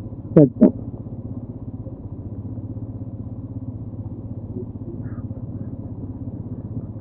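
Motorcycle engine running at a steady speed while riding, a low even drone.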